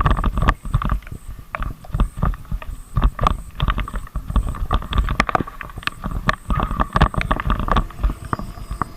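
Motorcycle on the move: steady engine and road rumble, with irregular knocks and thumps on the microphone throughout.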